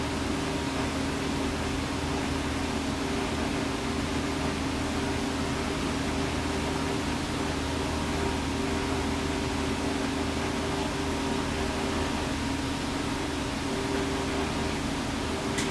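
Steady hum and hiss of restaurant kitchen machinery, with a few constant low tones under an even noise. A brief click sounds near the end.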